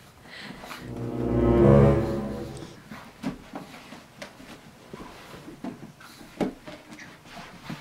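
A low, steady-pitched horn-like sound effect that swells up and fades away over about two and a half seconds, followed by a few short, light knocks.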